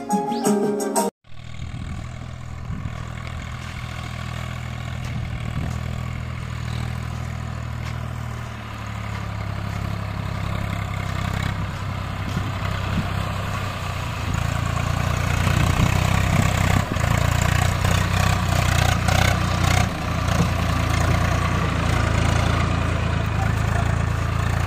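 Swaraj tractor's diesel engine running steadily as the tractor drives, growing louder about a third of the way in and again past the middle.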